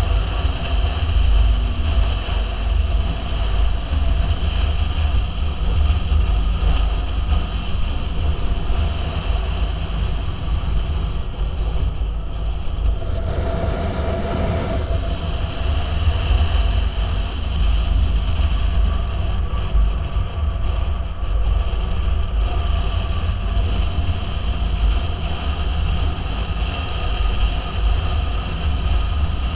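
Motorcycle underway at road speed: the engine's steady drone under heavy wind rumble on the bike-mounted microphone.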